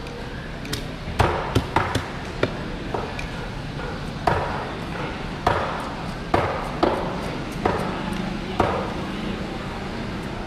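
Heavy knife chopping through a large fish into a thick wooden log chopping block: about a dozen sharp, irregularly spaced strikes, with market chatter behind.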